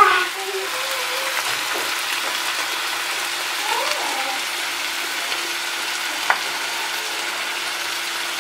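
Sliced meat and frozen mixed vegetables sizzling steadily in two non-stick frying pans, with a single sharp click about six seconds in.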